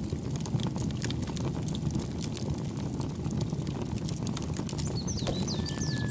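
Steady low rushing background with scattered small clicks; from about five seconds in, small birds chirp in short falling notes.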